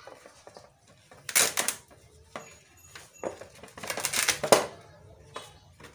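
A broken piece of a motorcycle helmet's thin, flexible plastic outer shell being bent and handled. It makes two loud rustling, scraping bursts, about a second and a half and four seconds in, with a few sharp clicks between.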